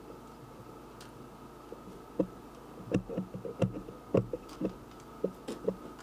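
A run of about a dozen short, irregular clicks and knocks, starting about two seconds in.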